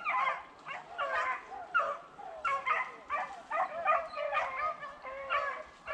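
A pack of beagles baying on a rabbit's trail: several dogs calling over one another, one short drawn-out call after another.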